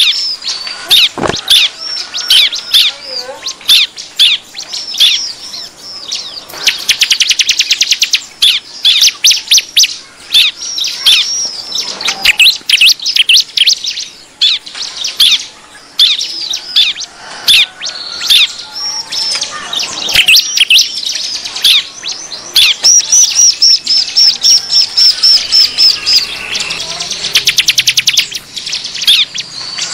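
Bar-winged prinias (ciblek) calling noisily in a dense, unbroken chorus of high down-slurred chirps, broken by fast rattling trills about 7 seconds in and again near the end. It is a ciblek lure call (suara pikat), used to draw wild prinias in.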